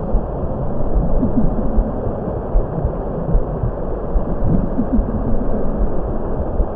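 Steady low rumbling ambient drone of a relaxation soundtrack, with soft low thumps and short rising blips scattered through it.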